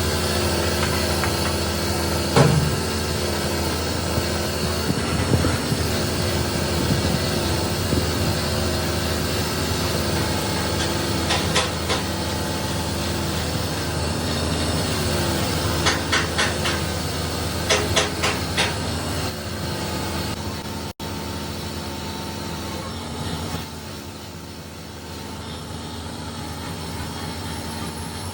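A motor running with a steady low hum whose pitch drifts up and down, with a few sharp clicks or knocks: one a couple of seconds in, one about halfway, and a cluster a little later. It runs quieter near the end.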